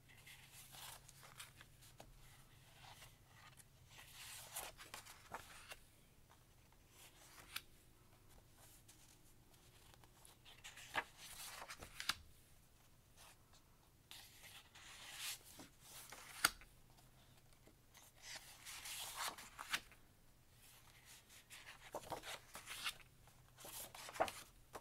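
Sheets of printed craft paper rustling and sliding against each other as they are leafed through one at a time, faint, with irregular louder swishes and a few sharp taps.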